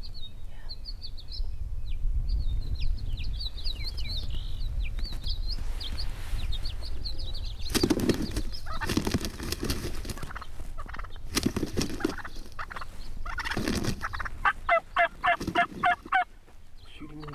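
Wild turkey gobbler attacking a tom decoy: several bouts of heavy wing-beating and scuffling, with high bird chirps in the first few seconds. Near the end comes a quick run of about eight loud turkey calls.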